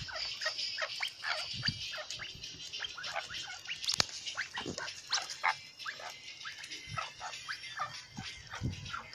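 Grey-winged francolins giving many short, soft calls in quick succession, several a second, as they crowd in to feed. A sharp click about four seconds in.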